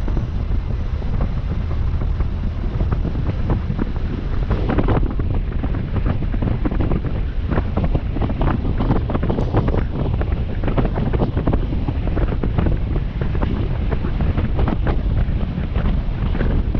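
Heavy logging equipment running with a steady low rumble, wind buffeting the microphone, and frequent short knocks and clatter.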